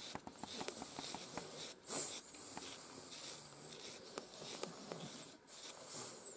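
Metal stripping knife scraping and plucking the wiry coat on a miniature schnauzer's skull in quick short pulls, with one louder stroke about two seconds in.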